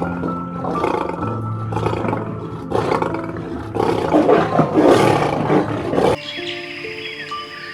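Loud, rough calls from a large animal, in several bursts and loudest about four to five seconds in, over calm piano and guitar background music. The calls cut off suddenly about six seconds in, leaving only the music.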